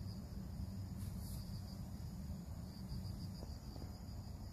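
Crickets trilling steadily outdoors, a continuous high-pitched band, over a low, steady rumble.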